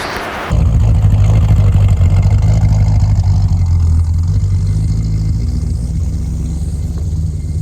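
Vehicle engine running steadily with a low rumble, starting abruptly about half a second in.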